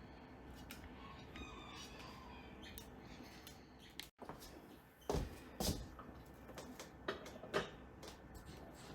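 Quiet kitchen background, then after about five seconds a scatter of soft knocks and clicks of hands handling things.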